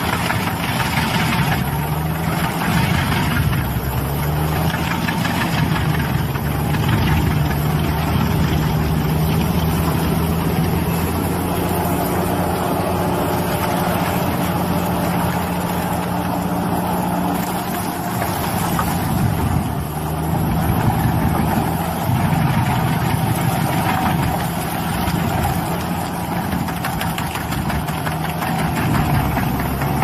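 Tracked stump grinder running steadily under load as its spinning toothed cutter wheel grinds a tree stump into soil and wood chips, with a grinding hiss over the engine. The engine note dips briefly a few times and recovers.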